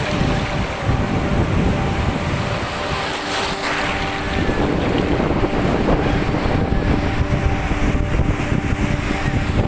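Sea surf breaking and washing up over a sandy beach, foaming water swirling in the shallows, with strong wind buffeting the microphone.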